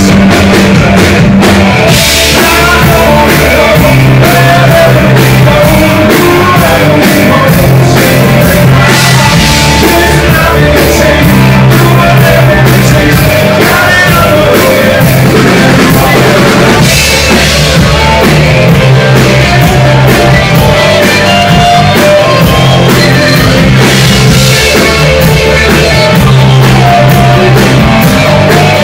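A live rock band playing loud: electric guitars, bass guitar and a drum kit, with a man singing lead.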